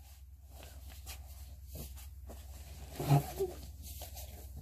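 Light rustling of a folded paper instruction leaflet being handled over a steady low hum, with a brief short voice sound about three seconds in.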